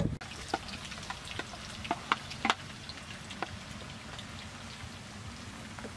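Potato strips frying in oil in a pan, a steady sizzle with a few sharp clicks and pops in the first half, the loudest about two and a half seconds in.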